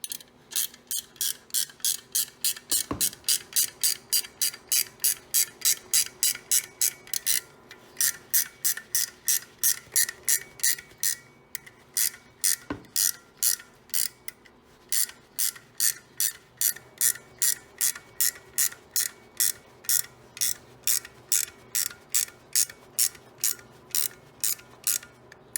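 Ratcheting wrench clicking steadily, about three clicks a second with a few short pauses, as it turns the nut of a door-spring compressor to squeeze a door hinge spring.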